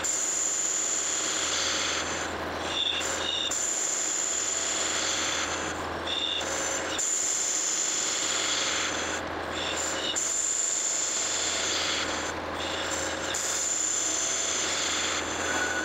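Metal lathe facing the web of a cast iron Durabar pulley with a carbide-insert tool: a steady cutting hiss with a high whine over the low hum of the lathe's motor. A few short, higher squeals come and go during the cut.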